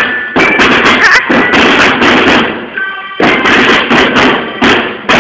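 Marching drum band playing: snare and bass drums beating a fast, loud rhythm, with a few short high melodic notes over it, and a brief break about three seconds in.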